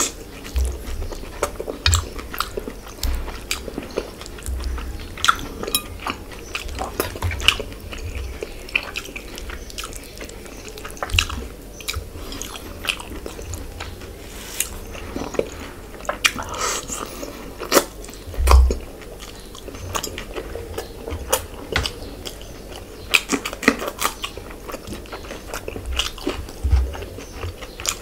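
Close-up eating sounds of a man chewing and biting into fish curry eaten by hand: many irregular short smacks and clicks of the mouth, with an occasional crunch.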